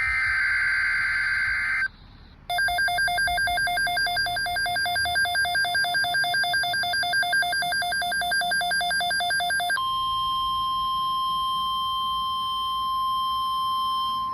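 Emergency Alert System tones from a NOAA Weather Radio alert. First the end of a SAME digital header burst, a harsh data screech. After a short gap comes a rapidly pulsing, warbling two-tone electronic alert, and about ten seconds in the steady 1050 Hz Weather Radio warning-alarm tone begins.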